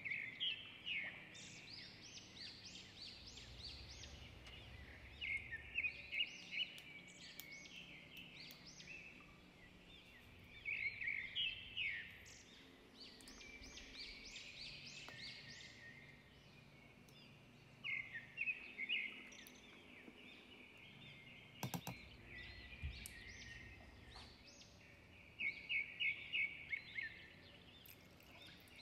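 Small birds chirping in short flurries of quick, high chirps every few seconds over a low steady hiss. A single sharp click comes about two-thirds of the way in.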